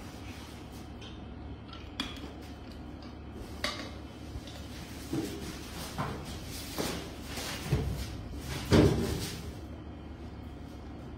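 Scattered knocks and thumps over a steady low hum, the loudest thump about nine seconds in.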